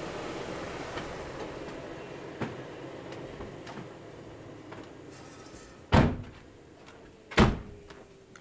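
Two car doors of a Renault Clio being shut, two heavy thumps about a second and a half apart, the first about six seconds in. Before them there are only a few light clicks over faint background noise.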